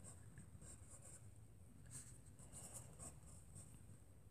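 Faint pencil scratching on paper as words are written, in short strokes.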